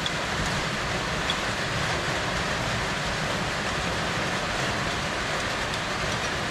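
Steady fan-like hiss of workshop background noise, with a few faint clicks as bolts are fitted by hand.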